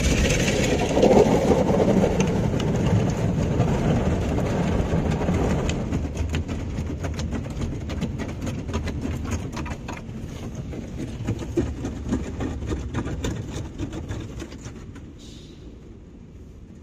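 Ryko SoftGloss XS 2 in-bay automatic car wash working over the vehicle, heard from inside the cabin: a loud steady rush for about six seconds that then fades, with scattered drips and taps on the body, until it is quiet near the end.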